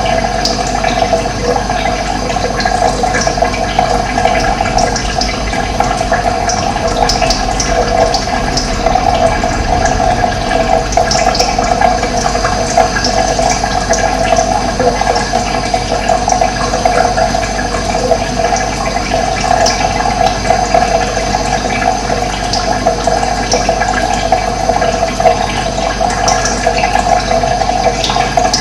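Running water flowing and splashing steadily.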